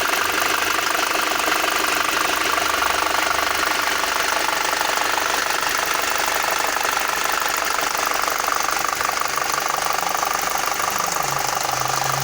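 Volkswagen BVY 2.0 FSI four-cylinder petrol engine running steadily at idle with a fast, continuous ticking clatter over it: the extraneous engine noise being investigated. A low steady hum comes in near the end.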